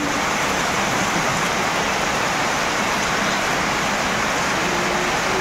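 Heavy rain falling steadily, an even hiss of rain on the ground and puddles.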